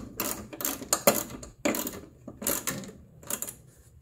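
A ratchet wrench tightening the mounting clamp around a vapor canister: a run of about six short ratcheting strokes that stops shortly before the end.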